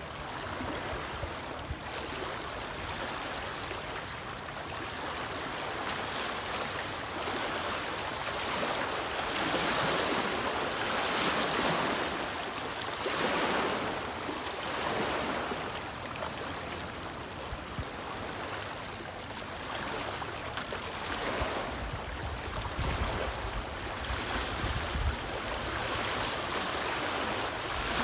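Small lake waves lapping and splashing against a rocky shoreline, swelling and easing in irregular surges, with wind rumbling on the microphone about three-quarters of the way through.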